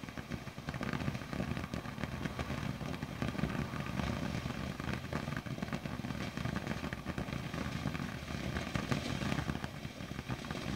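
Ground firework fountain spraying sparks: a continuous rushing with dense, rapid crackling.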